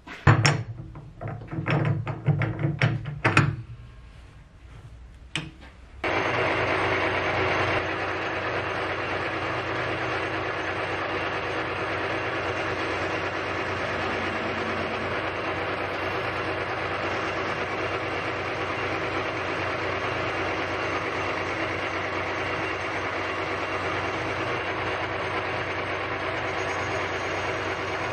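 Metal lathe: a run of loud, irregular knocks and clatters in the first few seconds, then from about six seconds the lathe runs steadily with a constant many-toned mechanical hum while a tool cuts a groove into the spinning aluminium cylinder.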